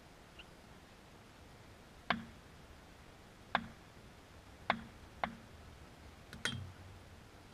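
Wooden cricket bat tapped on a hard court surface: four sharp taps spread over about three seconds, then a louder double knock near the end.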